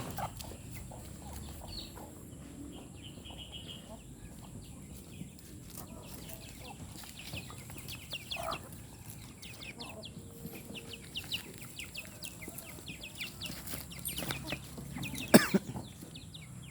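A flock of native chickens clucking with many short, high calls. A sharp knock stands out about fifteen seconds in.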